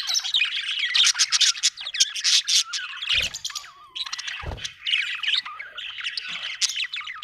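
Budgerigar chirping and warbling in a fast, continuous stream of high chirps and clicks, with a short lull about four seconds in. A few brief low thumps sound underneath.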